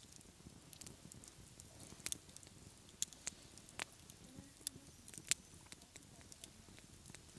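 Campfire crackling: sparse, irregular sharp pops and snaps over a faint background hiss.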